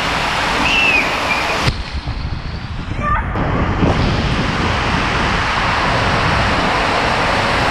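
Water rushing and splashing around a raft sliding down an enclosed tube water slide, heard from right on the raft, with wind buffeting the microphone. The rush goes muffled for about a second and a half about two seconds in.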